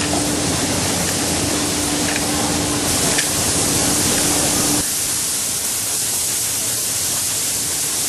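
Automatic shoe-outsole spraying machine running: a loud, steady hiss of its air-driven spray guns, with a steady low hum that cuts off about five seconds in.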